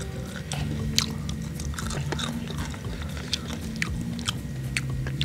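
Close-miked chewing of fried noodles and crispy fried chicken: wet mouth clicks and crunches scattered irregularly, while fingers pull at the crunchy batter. A steady low hum runs underneath.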